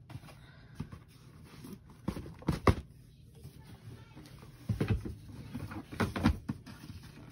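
Cardboard shoe boxes being handled: lifted off a stack, knocked together and set down, giving several dull thumps and scrapes, the loudest about two and a half seconds in.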